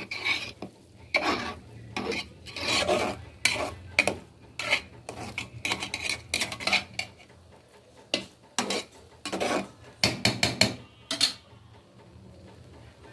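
A cooking utensil scraping and stirring in a pot of khichuri, in repeated short strokes about two a second that stop about eleven seconds in. A faint steady low hum runs underneath.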